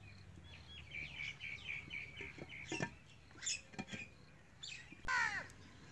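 Birds chirping, with a quick run of short repeated chirps over the first couple of seconds. In the middle come a few sharp knocks as the clay lid is set on the clay cooking pot, and near the end there is one louder falling call.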